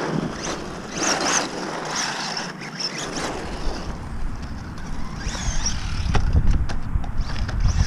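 Electric motor of an LC Racing EMB-T RC truggy on a 2S battery whining as it speeds up, with its tyres running over concrete and a few sharp knocks near the end. A low rumble builds from about three seconds in.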